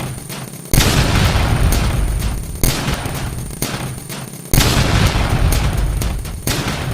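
An Emergency Alert System alarm sped up so far that its tones are gone, leaving harsh, crackling static full of clicks. Two loud surges, about a second in and about four and a half seconds in, each fade away.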